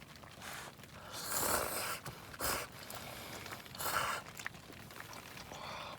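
A person's breathy sounds: a handful of short, noisy puffs of breath, the longest about a second in.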